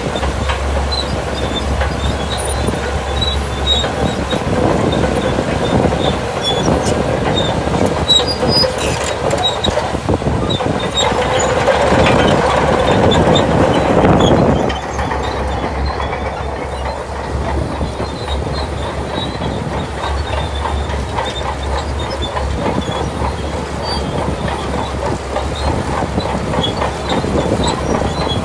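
Shantui DH17 crawler bulldozer working: its diesel engine running under load with the steel tracks clanking and squealing. The machine noise swells to its loudest about halfway through, then drops off suddenly.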